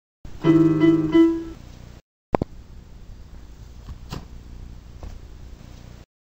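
A short phrase of keyboard notes lasting about a second, the last note held a little longer, followed by a single click and faint steady background noise.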